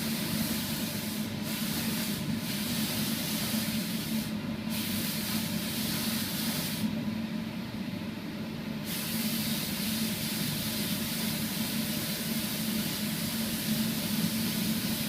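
Spray gun hissing as it sprays sanding sealer, the air hiss stopping briefly several times as the trigger is released. A steady low hum runs underneath.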